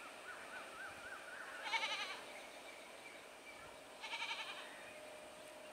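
Goats bleating twice, two short quavering calls a couple of seconds apart, over faint background noise.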